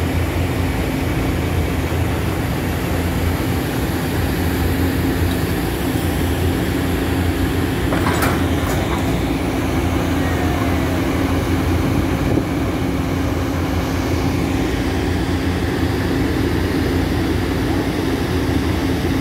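Volvo EC350DL crawler excavator's diesel engine running steadily as the machine works its arm, with a couple of sharp metallic clicks about eight seconds in.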